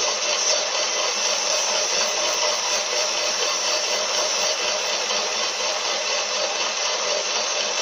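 Metal lathe running steadily with an abrasive strip held against the spinning differential pinion flange, polishing out the groove the oil seal wore into its seal surface. A steady, even noise at a constant level.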